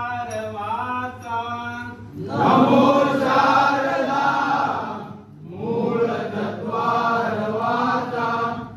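Konkan Ganesh bhajan: a single voice sings a line, then a group of voices joins in chorus about two seconds in, drops out briefly, and sings again near the end.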